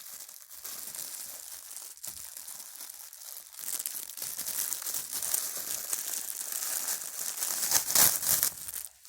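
Plastic and cardboard packaging being crinkled and torn open by hand, the crackling growing louder from about the middle and loudest near the end.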